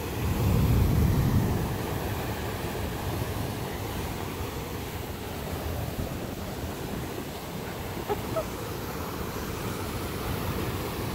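Fan and Mortar Geysers erupting: a steady rush of water and steam jetting from their vents, swelling louder and lower for a moment about a second in.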